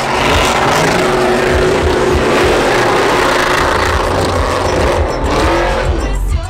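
Pickup truck doing a burnout: the engine runs at high revs while the rear tyres spin and squeal on the pavement in one long, loud, continuous rush of noise. The high tyre hiss thins out near the end.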